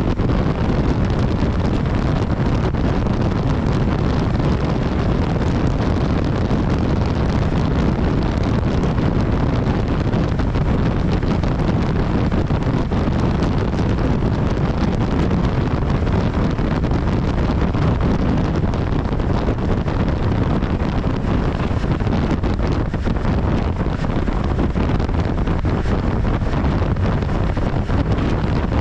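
Wind rushing over the microphone of a BMW S1000XR motorcycle under way at a steady speed, with the bike's inline-four engine running underneath.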